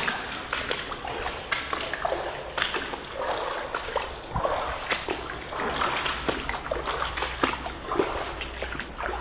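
Footsteps wading through shallow water in boots, splashing with each step at a walking pace.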